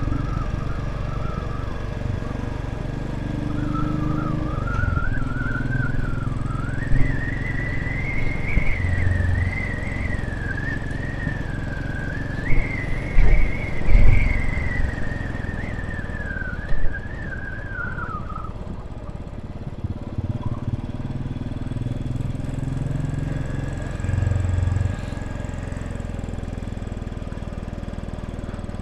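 Royal Enfield Classic 500's single-cylinder engine running steadily under way, with wind noise and a few sharp thumps. For roughly the first eighteen seconds a high whistling tone wanders up and down in pitch over it.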